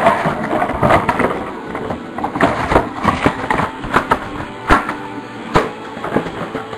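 Handling noise close to the microphone: a string of irregular clicks, taps and knocks, with rustling, as cards and the camera are moved about on a tabletop. The handling is busiest at first and thins out toward the end.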